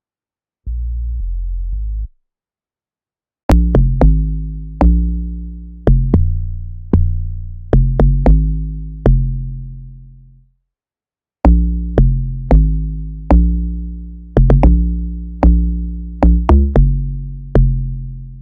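Amapiano log drum bass line played back in FL Studio: deep pitched notes, each with a sharp click at the start and a long decay, in a syncopated pattern of two phrases with a short break between them. Just before that, a brief held low bass note sounds.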